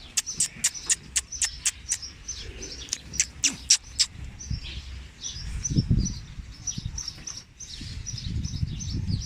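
Small birds chirping repeatedly, with a quick, irregular run of about a dozen sharp clicks in the first four seconds. A low rumbling noise builds from about halfway through.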